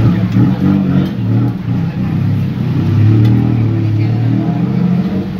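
Motor vehicle engine running, a loud low hum whose pitch shifts up and down as it revs.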